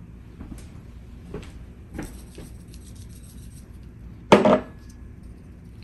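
Tableware handled on a table: a few light clinks and knocks, then one louder clatter about four seconds in that rings briefly.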